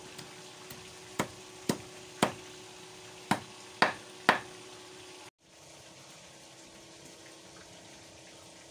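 A large kitchen knife chopping fish on a wooden board: about eight sharp chops, roughly half a second apart, that stop about five seconds in. After that only a faint steady background remains.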